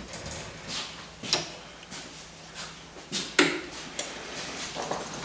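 Lathe turning tool taking a series of short cuts on a spinning wooden blank, a brief scrape roughly every half second, as an edge is rounded over, with the lathe's faint steady hum beneath.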